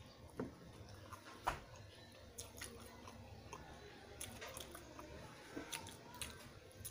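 A person chewing a mouthful of grilled tuna sandwich, faint, with scattered soft clicks from the mouth and teeth; the sharpest comes about a second and a half in.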